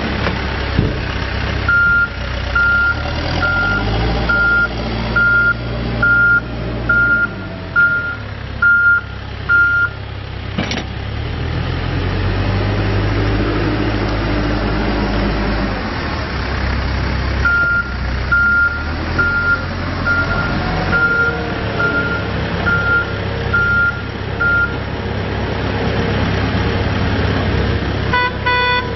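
2011 Case 580N backhoe loader's diesel engine running, its pitch rising and falling as the machine is worked, with its reverse back-up alarm beeping about once a second in two runs of about eight beeps. A short stacked tone sounds near the end.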